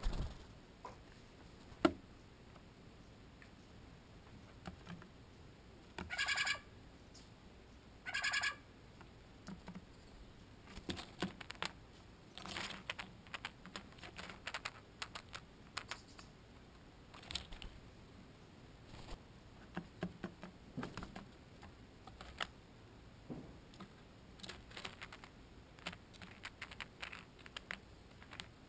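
Steller's jay pecking and picking up peanuts on a metal feeder tray right beside the microphone: irregular clusters of quick taps and clicks, with a knock about two seconds in. Two short harsh bird calls, about six and eight seconds in.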